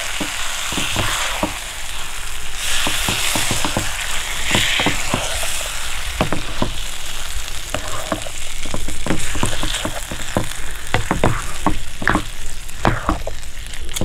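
A flat spatula stirring and scraping a thick mix of vegetables, black chickpeas and fried grated coconut in a hot nonstick pan, with a light sizzle: the freshly fried coconut and curry leaves being folded into the cooked vegetables for koottu curry. The hiss is strongest in the first half, and the scraping strokes come quicker and sharper in the second half.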